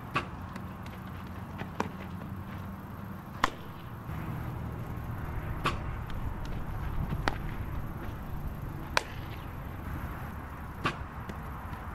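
Sharp cracks of a softball being hit by a bat and caught in leather gloves during infield ground-ball drills, about one every one and a half to two seconds, over steady background noise.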